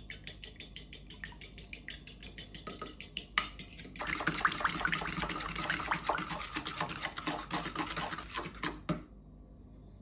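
Metal fork beating a runny egg, milk and melted-butter mixture in a bowl: quick tapping and sloshing strokes, several a second. They grow louder and busier about four seconds in and stop shortly before the end.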